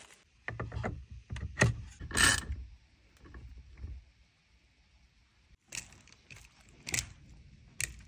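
Scattered clicks and clunks of hand tools and metal parts as an aftermarket steering wheel and its hub adapter are fitted and bolted onto a steering column. A cluster of knocks comes in the first couple of seconds, then a quiet spell, then a few sharp clicks near the end.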